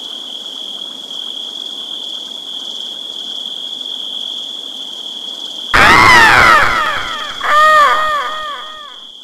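A steady high-pitched insect drone over a faint hiss. About six seconds in, a sudden loud stinger sound effect of falling, swooping tones cuts in, followed by a quick run of short rising-and-falling tones, about four a second, that fades away.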